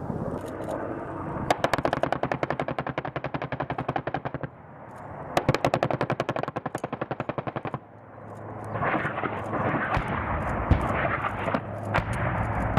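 M2 .50 caliber heavy machine gun firing two long sustained bursts, each about three seconds of rapid, evenly spaced shots. A steady noise with a low hum follows near the end.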